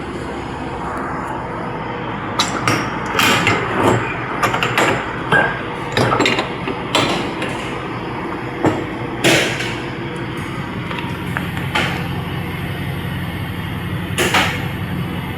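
A steady engine-like hum, with a run of irregular sharp knocks and clacks between about two and ten seconds in and two more later, like metal being struck or handled.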